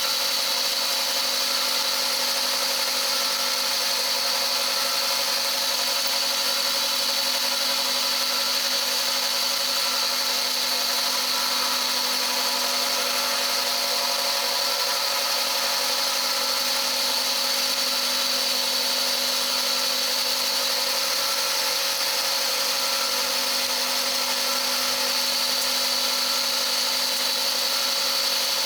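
CNC milling machine hobbing a helical gear with a gear hob: a steady machining whine with a high, even tone.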